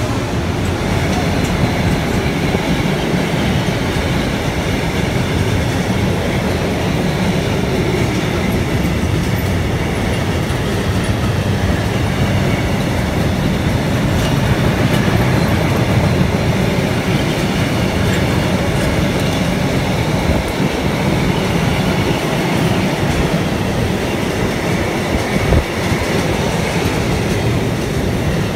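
Freight train's long rake of covered box wagons rolling steadily past, a continuous noise of wheels running on the rails.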